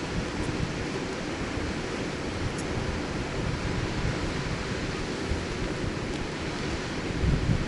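Steady wind buffeting the microphone, with a stronger gust near the end.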